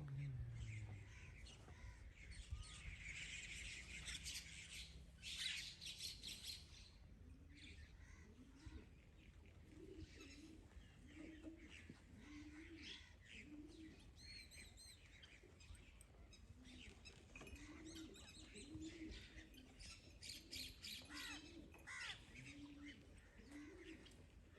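Faint birdsong: small birds chirping throughout, with a dove cooing repeatedly from about ten seconds in.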